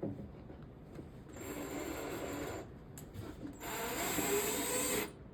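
Power drill driving a screw into drywall in two runs, the second longer and louder, each a steady whir that stops abruptly.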